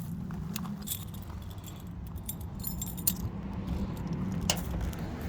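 A bunch of keys jangling, with a few short metallic clicks, over a steady low hum.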